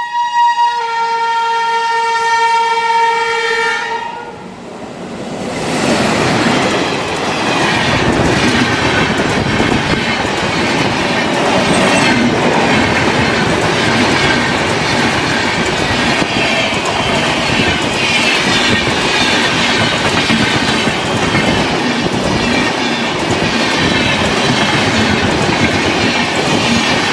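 Train air horn sounding one long chord of several tones, a lower note joining about a second in, for about four seconds. It is followed by a train passing at speed, a steady loud rush of wheel and rail noise with clickety-clack.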